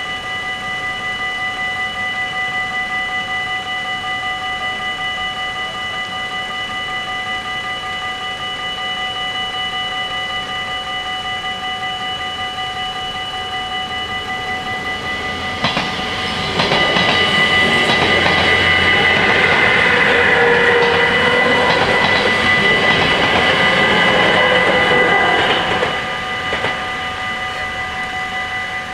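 Dutch level-crossing warning bells ring steadily. About fifteen seconds in, an NS ICMm 'Koploper' electric intercity train passes for about ten seconds, with wheel clicks over the rails, and is the loudest sound.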